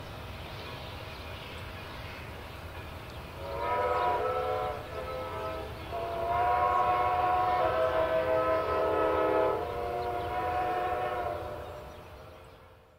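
Steam whistle of Strasburg Rail Road No. 90, a 2-10-0 steam locomotive, sounding a chord of several notes: two blasts about four seconds in, then a long drawn-out blast, over the low rumble of the train pulling away. The whole fades out near the end.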